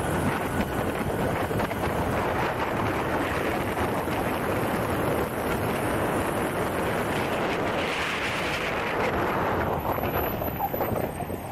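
Wind rushing over the microphone at riding speed, over the rumble of an electric skateboard's Boundmotor hub-motor wheels with urethane sleeves rolling on asphalt. The noise eases off near the end.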